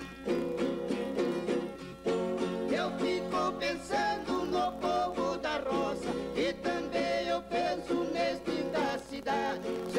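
Two violas caipira, the ten-string Brazilian folk guitar, playing an instrumental passage: fast plucked and strummed chords under a picked melody line that bends in pitch.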